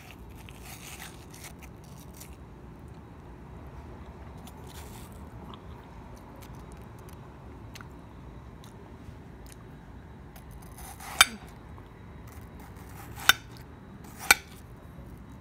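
Metal spoon scooping into the flesh of a half watermelon: quiet wet scraping and crunching, with three sharp clicks in the last few seconds.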